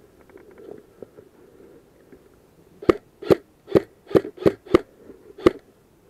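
Airsoft rifle fired in single shots: seven sharp cracks in quick, uneven succession, starting about halfway through.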